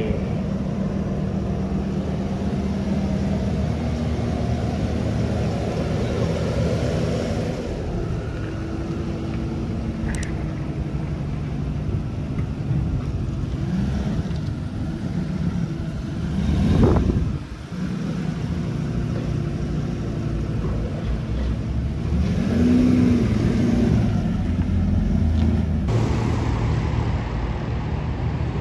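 Mercedes-Benz W140 S600's M120 V12 engine running at idle just after starting, a steady low drone. Briefly louder about 17 seconds in and again around 23 seconds.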